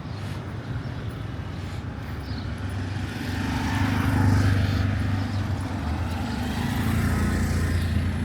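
Street traffic with a motor vehicle's engine running close by, its low hum building to its loudest about four seconds in and staying strong to the end.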